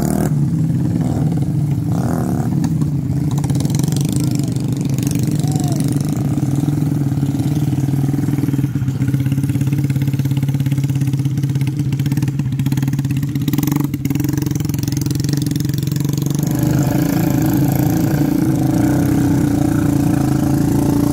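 Trail motorcycle engines running at a fairly steady speed, with a fuller, busier engine note in the last few seconds.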